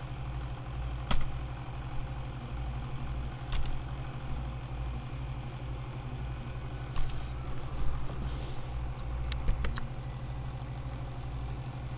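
A steady low hum with several single sharp clicks scattered through it, mouse clicks on a computer.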